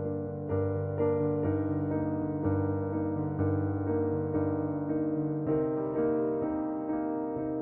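Background music: electric piano chords over a bass line, new notes struck about once a second; the bass drops out about five and a half seconds in.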